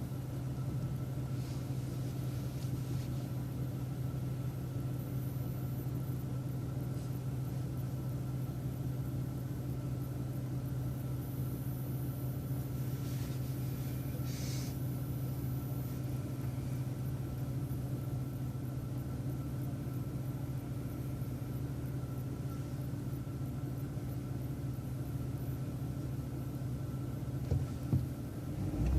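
City transit bus engine idling with a steady low rumble.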